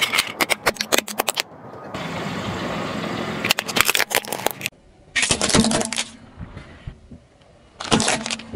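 Plastic PEZ candy dispensers cracking and snapping under a car tyre. There is a quick run of sharp cracks at the start and another about three and a half seconds in, with shorter crunches in the middle and near the end.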